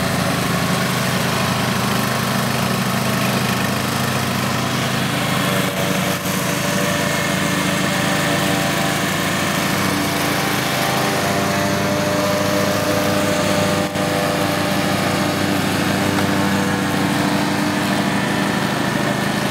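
Ride-on lawn mower with a front cutting deck, its small engine running steadily while mowing. The sound dips briefly twice, about six and fourteen seconds in.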